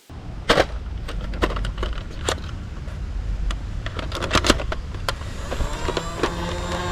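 Scattered sharp clicks from a plastic toy machine gun being handled, over a steady low rumble. Faint steady tones come in near the end.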